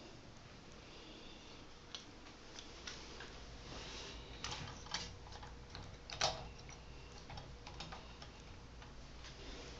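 Faint, irregular clicks and light taps of small faucet parts being handled and fitted while a bathtub faucet is reassembled, with one louder click about six seconds in.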